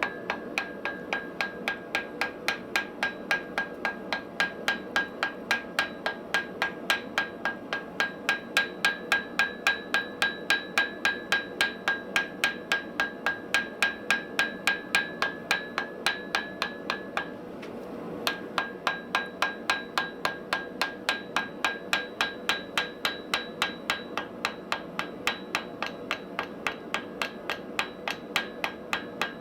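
Steady hammer blows on an anvil, about three a second, the steel ringing after each strike. The blows stop for under a second about two-thirds of the way through, then carry on.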